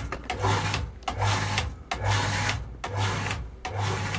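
Surface pump station's electric pump with a strange sound: its motor hum pulses on and off in quick succession, about once every three-quarters of a second. This is the rapid short-cycling that the owner puts down, most likely, to a failed membrane (bladder) in the pressure tank.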